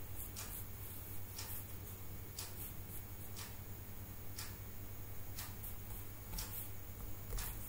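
Faint ticks about once a second over a low steady hum.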